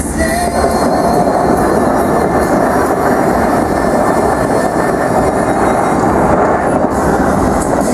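Bellagio fountain's water jets shooting and falling back: a loud, steady rushing roar of water that all but covers the show's music.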